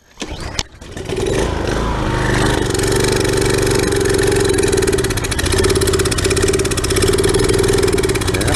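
Briggs & Stratton small engine on a pressure washer catching about a second in after a pull of the starter cord, then running steadily. It has been primed with starter fluid, and the owner blames old gasoline still in the tank for its poor running.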